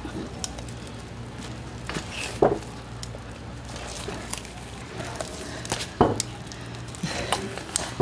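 A kitchen knife cutting through a raw skate on a plastic cutting board, with a few sharp knocks of the blade and fish against the board, the loudest about six seconds in, over a steady low hum.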